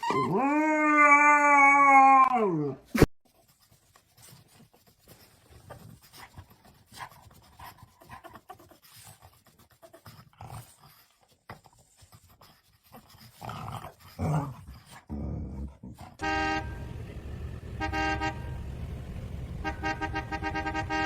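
A dog's long, loud howl that glides down and cuts off after about three seconds with a sharp click. Then come faint scattered clicks, and in the last few seconds a low steady hum under a repeating pitched pattern.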